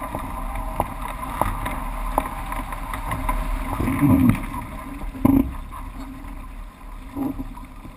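Onboard sound of a Bladerider International Moth dinghy under sail: a steady rush of wind on the microphone and water past the hull, with scattered sharp knocks from the boat's fittings and two heavier thumps, about four and five seconds in.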